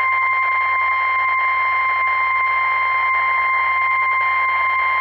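NOAA Weather Radio's 1050 Hz warning alarm tone: a single steady, unbroken high tone over radio hiss. It signals that a tornado warning is being broadcast.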